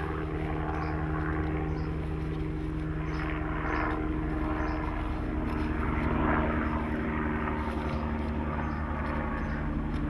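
A full-size propeller aeroplane flying overhead, its engine a steady drone.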